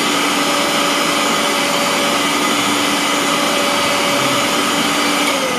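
Mixer grinder motor running at full speed with a loud, steady whine. Near the end it is switched off and starts to wind down, its pitch falling.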